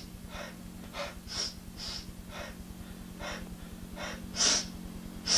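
A woman's short gasping, sobbing breaths, about two a second, with two louder gasps near the end, over a steady low hum.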